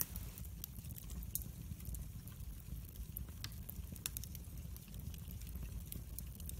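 Split wood logs burning in a fireplace, crackling with frequent irregular snaps and pops over a low steady rumble; one louder pop right at the start.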